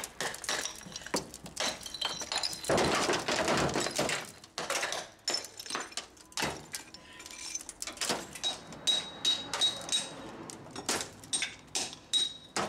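Hammer and chisel knocking and prying broken tile block and mortar out of a damaged wall: irregular sharp knocks and clinks, with a denser clatter of breaking pieces about three seconds in.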